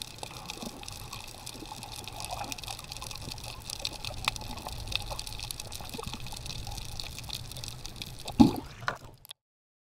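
Underwater sound through an action camera's housing: a muffled rush of water with a steady scatter of small crackling clicks. About eight and a half seconds in there is a loud bubbly gurgle, and then the sound cuts off suddenly.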